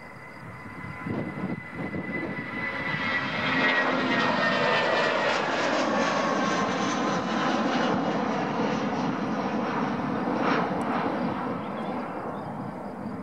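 The four Aviadvigatel PS-90A turbofans of an Ilyushin Il-76TD-90VD run as the freighter taxis onto the runway to line up. The engine noise swells over the first few seconds, a high whine glides steadily downward, and the sound eases off a little near the end.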